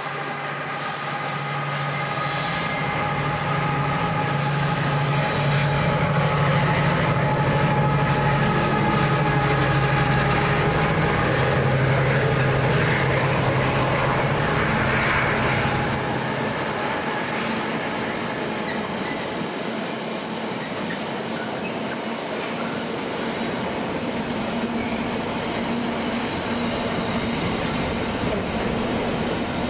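Diesel train passing, its engine hum building to a peak for several seconds and then dropping off about halfway, with steady high-pitched wheel squeal over it. A quieter rumble of the train goes on after the drop.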